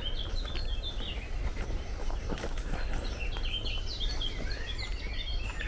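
Small birds chirping and singing, many short overlapping chirps going on all the while, with the soft, irregular steps of someone walking on a leaf-strewn dirt path beneath them.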